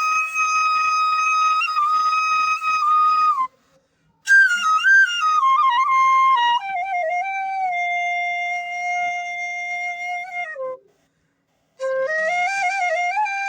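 Bansuri bamboo flute playing a slow melody: long held notes with small bends and ornaments. It plays in three phrases, with two short silences, the second phrase stepping down to a lower held note.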